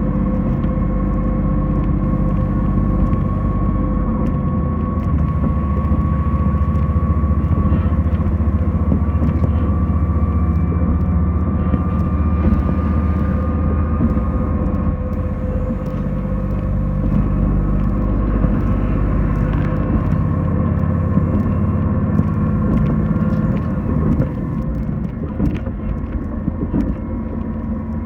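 Diesel train running, heard from inside the passenger cabin: a steady low rumble of engine and wheels on rail with a held whine over it, easing off slightly near the end.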